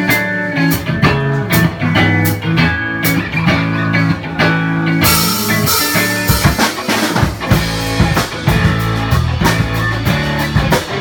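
Live rock band playing: electric guitar and bass guitar chords over a drum kit. About five seconds in the drums and cymbals come in much fuller and the band plays on at full volume.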